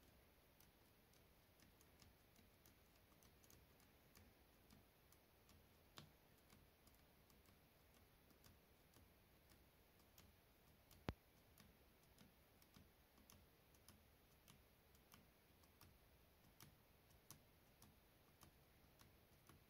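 Faint, rapid tapping on a Samsung Galaxy Book Go laptop keyboard key, about two to three taps a second, with one louder click about eleven seconds in: F8 being pressed over and over during boot to bring up the boot menu.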